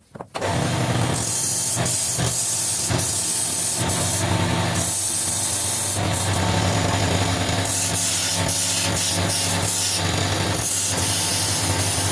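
Wood lathe running with a steady motor hum that comes in suddenly about half a second in, while a turning chisel cuts the spinning wood in hissing passes that come and go.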